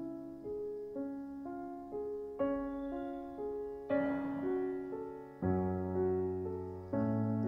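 Slow instrumental background music: a new chord struck about every one and a half seconds, each fading away before the next.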